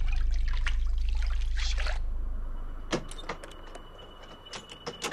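Shower water splashing over a steady low hum, which fades out about two and a half seconds in. It is followed by a handful of sharp, irregular knocks.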